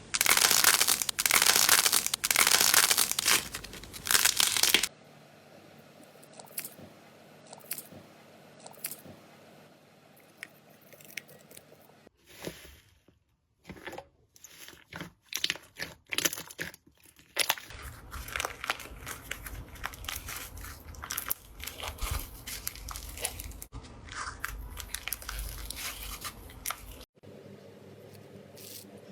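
Slime being handled, pressed and poked by hand, giving a crackling, clicking texture. It is loud and dense for the first few seconds, then quieter and sparser, and fills in again later on.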